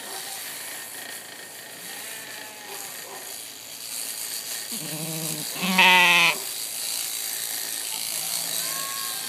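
Sheep bleating twice about five seconds in, the second bleat louder with a wavering quaver.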